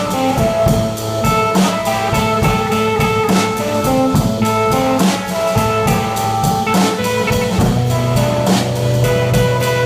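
Live blues band playing an instrumental break: a drum kit keeps the beat under guitar while a lead instrument plays a melody of held, bending notes.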